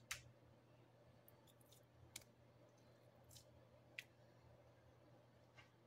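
Near silence: a faint steady room hum with a handful of soft clicks and ticks from handling a plastic olive oil bottle over a glass cutting board.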